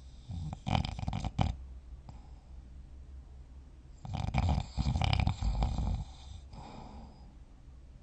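A sleeping person snoring: two rough snores about four seconds apart, each lasting a second or two, with quieter stretches between.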